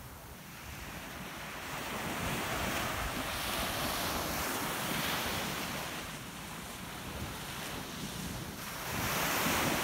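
Small sea waves breaking and washing up a sandy beach, the surf swelling twice, once through the middle and again near the end, with wind buffeting the microphone.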